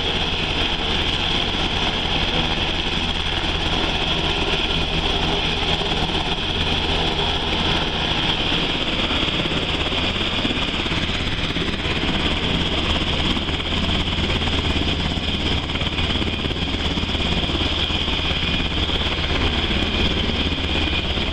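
Sikorsky UH-60 Black Hawk helicopter taxiing with its twin GE T700 turboshaft engines and rotors running: a steady high turbine whine over a steady low rumble.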